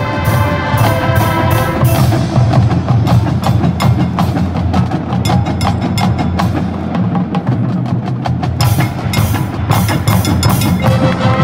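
Marching band percussion section playing a busy, rapid passage of struck notes and drums while the horns rest. Held horn chords come back in near the end.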